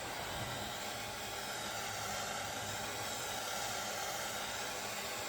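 Heat gun blowing a steady hiss of hot air, heating a solder joint on an airgun breech until the solder flows.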